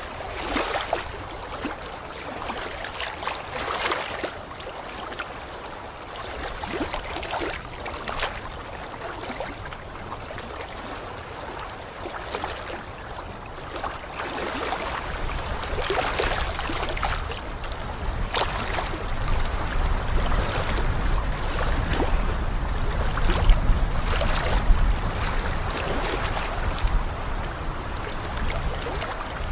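Waterfall's rushing water: a steady splashing hiss, with a low rumble that grows louder in the second half.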